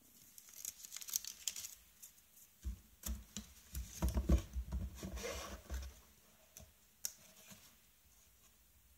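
Paper and cardboard packaging being handled: a paper CD sleeve crinkling, then a cardboard box being opened and moved about, with rustles and dull knocks that are loudest from about three to six seconds in.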